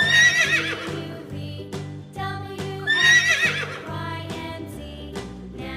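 A horse whinnying twice, about three seconds apart, each call a wavering high neigh that falls in pitch, over children's background music with a steady beat.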